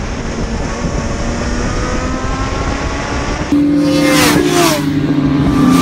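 Onboard at speed: a rush of wind and road noise, with a faint note slowly rising in pitch as the bike accelerates. About three and a half seconds in the sound cuts to trackside, where petrol superbikes race past at speed; their engine notes drop sharply in pitch as they go by.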